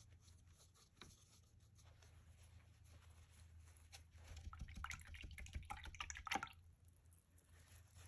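Paintbrush being rinsed in a plastic cup of paint water: a couple of seconds of small clicks and sloshing about halfway through, with near silence before and after.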